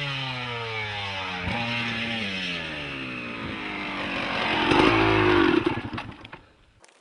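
Dirt bike engine winding down, its pitch falling, with a sudden jump in pitch about a second and a half in. It swells louder near the end, then fades away.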